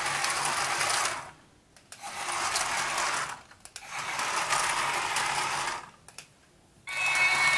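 Small electric motor and gears of a remote-control toy metro train whirring as it runs in reverse on plastic track. It cuts out three times for under a second and starts again. When it comes back near the end, a steady high tone is added.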